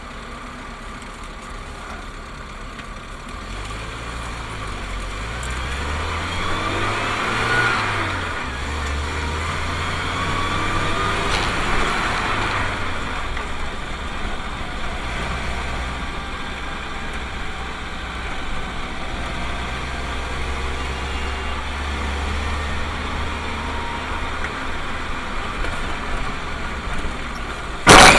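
Car engine running as the car drives in traffic, heard from inside the cabin; a few seconds in the engine note rises as it accelerates, then drops back and holds steady. Near the end a sudden loud bang as the car rear-ends the car in front that braked.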